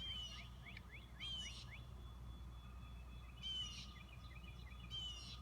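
Songbirds singing: a buzzy trilled phrase ending in a downward slur, repeated about four times, with short rising chirps in between, over a faint steady low hum.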